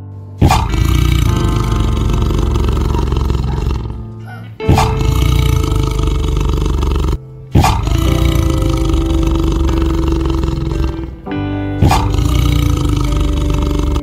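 Tiger roaring loudly four times in a row, each roar starting abruptly and lasting a few seconds, over background music.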